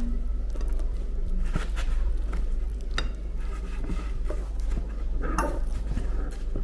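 Metal fork clinking and scraping on a ceramic plate while cutting through lasagna, a few scattered light clinks, over a steady low hum.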